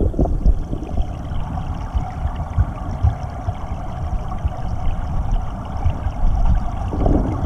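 Flowing creek water around a submerged camera, heard through its housing as a muffled, low rumble with frequent irregular thumps.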